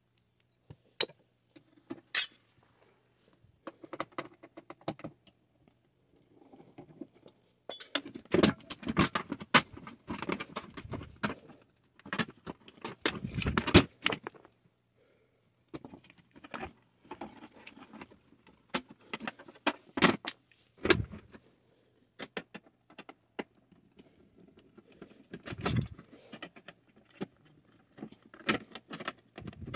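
Sheet-metal parts of a butane camp stove being handled during disassembly: scattered clinks and clatters of metal on metal. The rattling is thickest about eight to fourteen seconds in.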